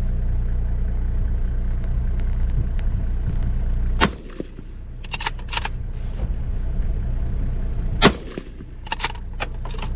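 Two rifle shots about four seconds apart, fired from the spotlighting vehicle, each followed by a few quick clicks. Under them runs the 4x4's steady engine idle.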